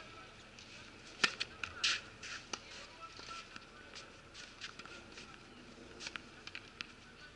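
Tennis racket striking the ball on a serve about a second in, followed by scattered fainter clicks of ball hits and bounces on the clay court.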